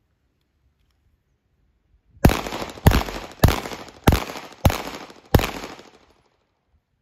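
Six handgun shots fired in a steady string about 0.6 s apart, starting a couple of seconds in, each followed by a short decaying echo. This is a six-shot string fired at a moving target.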